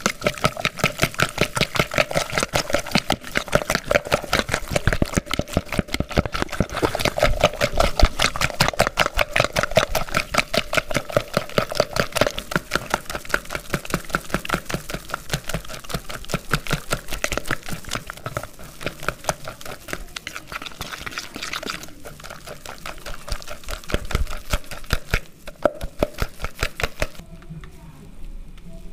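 A fork rapidly beating eggs with chopped tomato and onion in a plastic bowl: quick, even clicking and tapping at several strokes a second, which stops shortly before the end.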